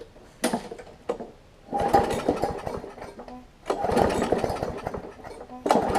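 Briggs & Stratton Classic engine on a Craftsman push mower being pull-started, about three pulls in a row, each a second or so of cranking in which the engine kicks over but does not keep running. The owner suspects bad fuel or water in the fuel.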